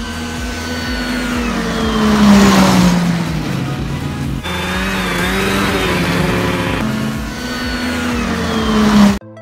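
Snowmobile engine passing close by. Its note climbs as it approaches, is loudest about two seconds in, and drops away as it goes past. After a sudden cut, a second snowmobile pass rises and falls again, then breaks off abruptly near the end.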